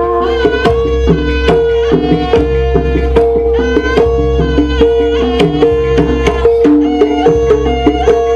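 Jaranan dance music from a Javanese troupe's ensemble: hand drums play a busy rhythm of sharp strokes over a held note, with melodic notes stepping up and down above them.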